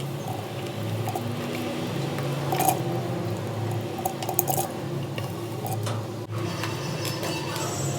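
Water splashing and trickling, with a few light knocks, over a steady low hum.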